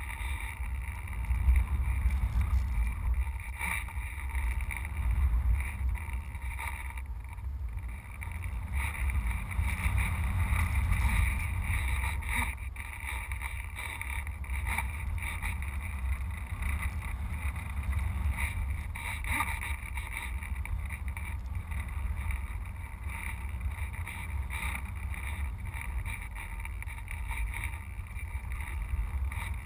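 Airflow rushing over a GoPro camera mounted on top of a radio-controlled sailplane in flight: a steady low wind rumble that swells louder a couple of times.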